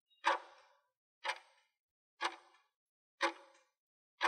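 Countdown timer sound effect: a sharp clock-like tick about once a second, each dying away quickly.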